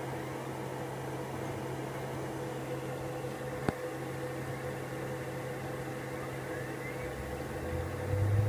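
Steady hum of a Macintosh IIsi setup with its SCSI CD-ROM drive, as the drive spins up and reads a freshly inserted data CD until the disc mounts. There is a single sharp click about midway and a faint rising whine later on. Near the end a deeper hum swells and grows louder.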